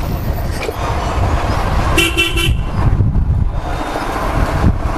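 Motorcycle riding along a town street: steady engine and wind noise, with a vehicle horn tooting once for about half a second, about two seconds in.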